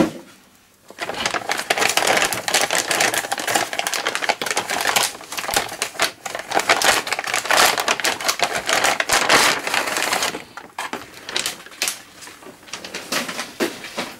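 Plastic antistatic bag crinkling and rustling as a motherboard is handled and slid out of it, after a sharp knock at the very start. The crinkling thins to scattered clicks and taps in the last few seconds.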